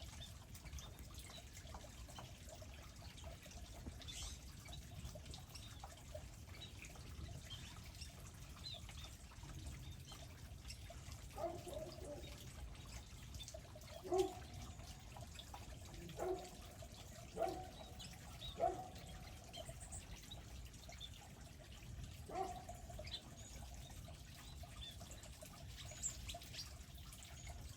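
Faint scattered chirps of small birds feeding at garden seed feeders, over a steady low background hiss. A few louder, lower-pitched short calls come between about eleven and twenty-three seconds in.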